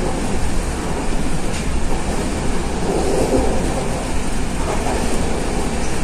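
Passenger train running at speed, heard from inside the carriage: a steady loud rush of wheels on rails with faint clicks from the track.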